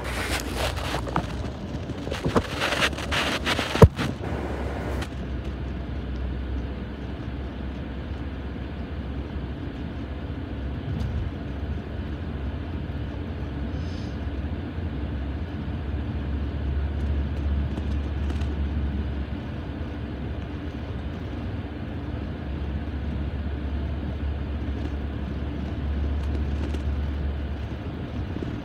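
Car cabin noise while driving: a steady low rumble of engine and road. In the first five seconds, rustling and knocks from the camera being handled and set down, with one sharp knock about four seconds in.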